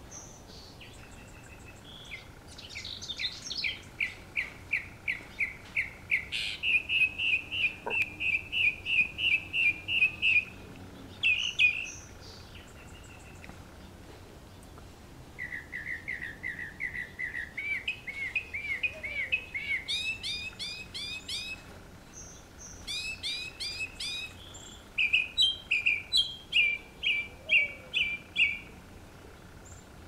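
Northern mockingbird singing: bouts of quick, clear notes, each phrase repeated many times over at about three to four notes a second before switching to another, with short pauses between bouts.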